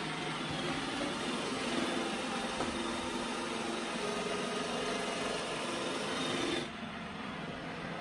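iRobot Roomba i7+ robot vacuum running: the steady hum and whir of its suction fan and brush rollers. About two-thirds of the way through, the sound suddenly drops quieter and duller.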